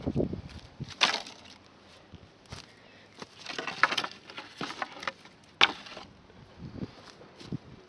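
Dry branches and sticks being laid onto a pile on the ground, knocking and clattering against one another in irregular bursts, with a dull thud at the start and a sharp knock past the middle.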